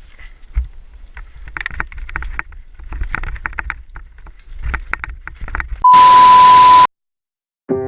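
Low rumble with scattered rattling clicks. About six seconds in comes a loud burst of static hiss with a steady beep tone, lasting about a second; it cuts off suddenly. Piano music starts right at the end.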